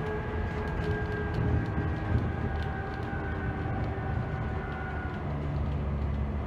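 Dennis Trident double-decker bus's diesel engine running hard under load, a steady drone with a thin whine above it, heard inside the lower-deck cabin. Light rattles and ticks from the bus's fittings come through it.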